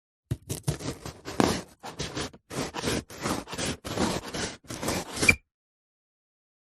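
Handsaw cutting through wood: a run of rasping push and pull strokes, about two a second, that stops abruptly about five seconds in.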